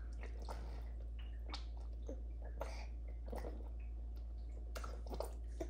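Baby sipping from a straw cup, with faint, irregular wet mouth clicks and slurps a few times a second.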